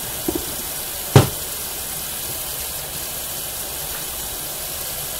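A single sharp knock on the tabletop about a second in, with a couple of faint taps just before it, over a steady hiss.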